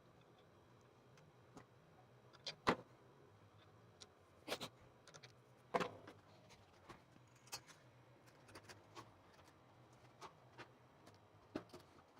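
Scattered light clicks and knocks from a bicycle being handled as its wheel is refitted and the freshly sanded disc brake pads are tried. The loudest come near three seconds in and again near six. No brake squeal is heard.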